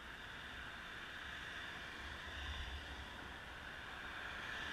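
Faint, steady road-traffic noise from cars driving across an intersection: a hiss of tyres and engines with an uneven low rumble that swells a couple of seconds in.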